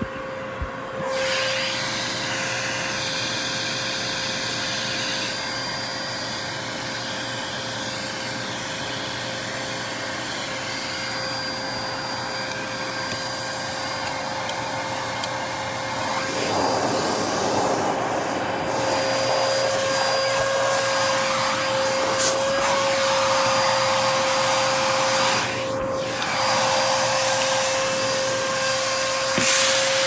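Dyson DC33 vacuum cleaner running with its hose wand worked over stair carpet: a steady motor whine under a rushing suction noise. The suction noise grows louder and keeps changing from about halfway through, with brief dips and swells as the nozzle moves on the carpet.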